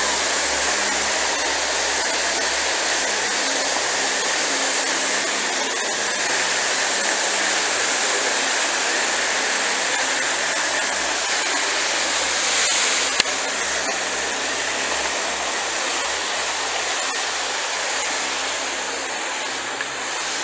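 Water pouring down a wall fountain into a canal: a steady rushing splash that eases a little in the second half, with one sharp click about thirteen seconds in.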